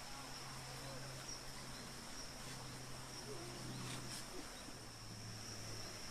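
A steady high-pitched insect drone in an outdoor chorus, over a steady low hum.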